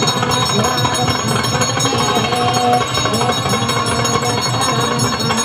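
Temple puja bell ringing continuously during the arati, as the priest waves the lit lamp before the deity, with a wavering melodic sound underneath.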